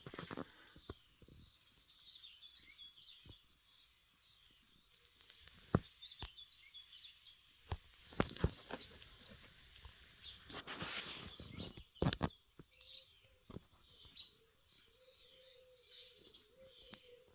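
Faint outdoor ambience: small birds chirping and twittering, broken by a few sharp clicks and knocks and a noisy rustling burst about eleven seconds in. A faint low hum comes in after that.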